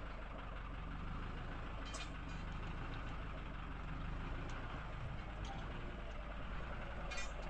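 A steady low hum like a running engine or motor, with a light sharp clink about two seconds in and another near the end.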